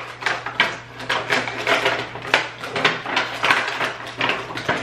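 Bath-salt jars and their clear plastic packaging being handled: a quick, irregular run of clinks, clatters and rustles, several a second.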